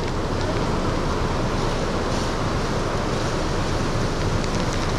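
Steady rushing noise of wind on the microphone and surf.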